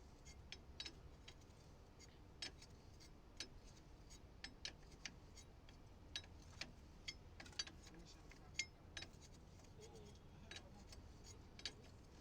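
Faint, irregular metallic clicks and taps of hand tools working on the backhoe's hydraulic hose bolt as it is refitted.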